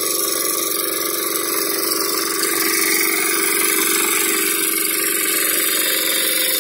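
Engine of a '740' two-wheel walk-behind tractor running steadily under load while its rotary attachment cuts through soil and throws it to the side. It gets a little louder from about two and a half seconds in.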